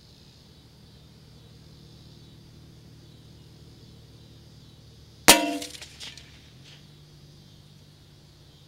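A single .22 LR shot from a Savage Mark II FVSR rifle, heard at the target: one sharp crack with a short ringing tail, then a fainter echo just under a second later.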